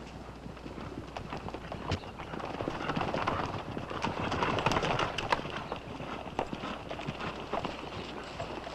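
Hoofbeats of a group of horses being ridden, an irregular clatter of many hooves that grows louder toward the middle as they approach and then eases off.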